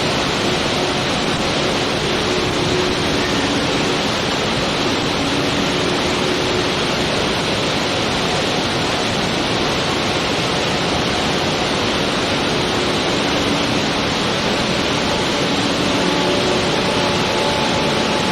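Niagara Falls, heavy falling water making a loud, steady, even rush. Faint held tones sound softly underneath now and then.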